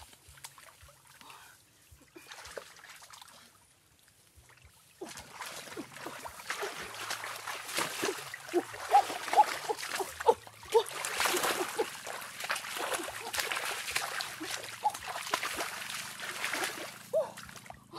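Water splashing and sloshing in a shallow muddy stream as hands grope through it for fish. It is quiet for the first few seconds, then becomes busy, irregular splashing from about five seconds in.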